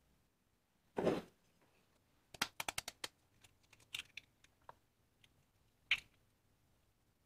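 Eggs being cracked and separated into a mixing bowl: a knock about a second in, then a quick run of small shell clicks and taps, and another sharp tap near six seconds.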